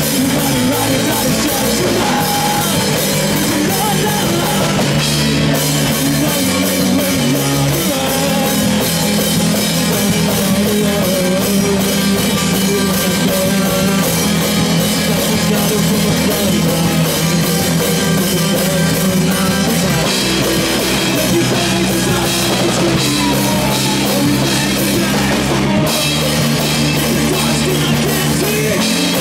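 Live rock band playing loud, with a drum kit and electric guitar; the low notes change about 8 seconds in and again about 20 seconds in.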